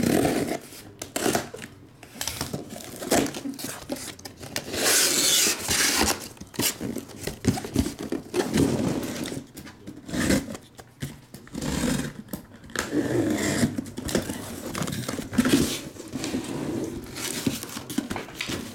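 Utility knife slicing the packing tape on a cardboard shipping case, then the flaps pulled open with cardboard scraping and rustling in irregular bursts.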